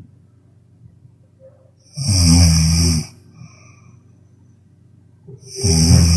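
A sleeping person snoring loudly: two long snores, about three and a half seconds apart, each lasting about a second.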